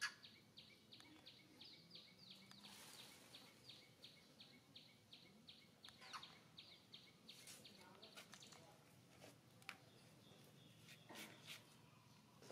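Faint, high-pitched chirping repeated evenly, about four chirps a second, which stops about seven seconds in and comes back faintly near the end, with a few soft clicks.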